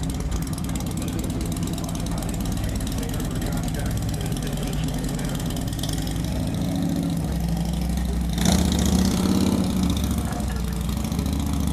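Harley-Davidson 103 cubic-inch V-twin engine idling steadily, with a brief louder burst of noise about eight and a half seconds in.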